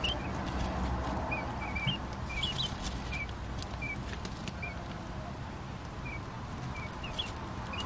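Quail chicks peeping: short, high peeps coming irregularly, several a second in places, over faint steady background noise.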